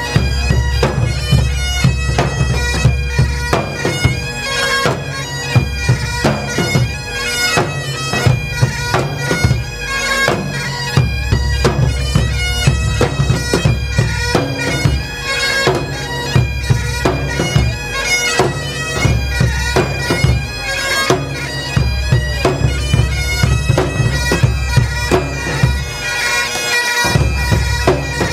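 Highland bagpipes playing a lively tune together over their steady drones, with large barrel drums beating along. The low drum part drops out briefly near the end.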